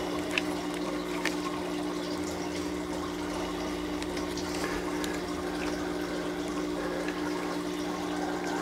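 Water trickling and bubbling in a recirculating deep water culture hydroponic system over the steady hum of a running pump, with a few light clicks of handling.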